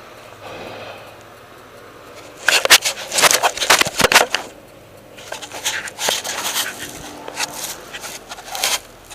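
Two spells of scraping and rattling clatter, a couple of seconds each, from tools and parts being handled while working under a car.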